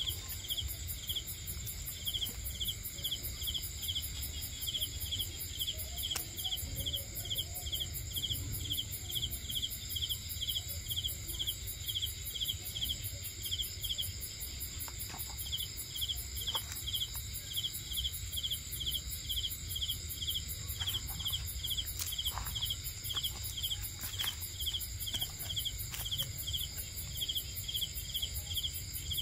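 Night insects calling: a cricket chirps in a regular run of short chirps that breaks off briefly about halfway through. Behind it, other insects keep up steady high-pitched trills.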